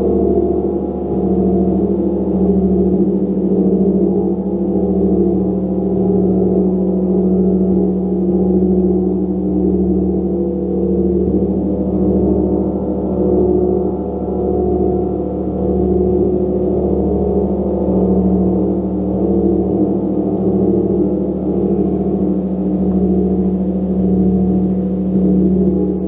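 A 36-inch gong played continuously, giving a dense drone of many overlapping low tones with one strong steady hum under them. The sound swells and ebbs every second or two, with no single strike standing out.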